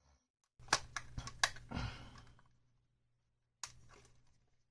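Sharp plastic clicks and light scraping as a credit card pries apart the clip-latched plastic shell of a DJI Mini 2 SE drone. There are four quick clicks within about a second, then one more click near the end.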